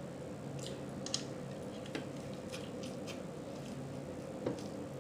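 A person chewing food with wet mouth smacks, a few short sharp clicks scattered through, over a steady background hum.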